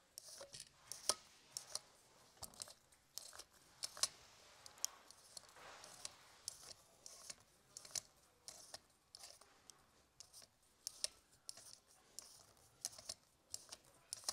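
Faint, irregular clicks and scrapes of a hand turning the threaded air tube of a Taipan Veteran 2 air rifle off its action: skin and metal rubbing, with a soft rustle about halfway through.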